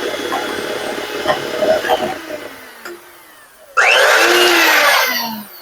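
Electric mixer whipping egg whites and sugar into meringue in a bowl, beating toward stiff peaks. It starts abruptly and fades over about three seconds, then runs loud again for about a second and a half with a wavering pitch before cutting off.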